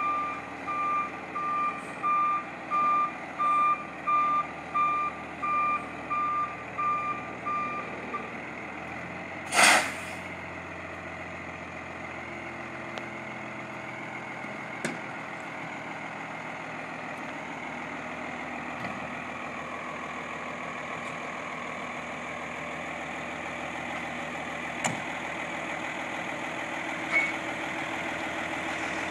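Truck's backup alarm beeping about one and a half times a second over its running diesel engine, stopping about eight seconds in. About ten seconds in comes one short, loud hiss of released air from the truck's air brakes, then the engine idles steadily.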